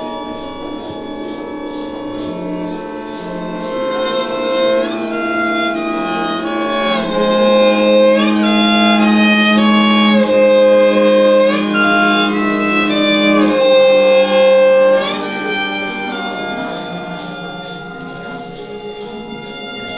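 String quartet playing long bowed notes that slide up into each new pitch, building to its loudest in the middle and easing off near the end.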